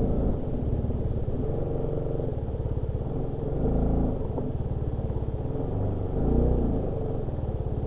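TVS Apache RR310's single-cylinder engine idling with the bike standing still, a steady pulsing rumble that swells slightly twice.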